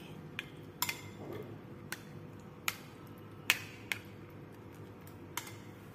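A spoon stirring thick curd in a glass bowl, clicking against the glass now and then: about seven sharp clicks at irregular intervals.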